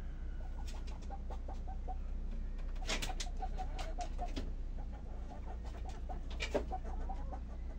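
Hens clucking softly as they go to roost, in short runs of quick, low notes. Two sharper short noises come about three and six and a half seconds in.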